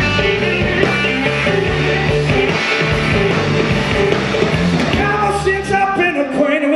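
Live blues-rock band playing: electric guitars over bass, drums and keyboards. The low end thins out near the end.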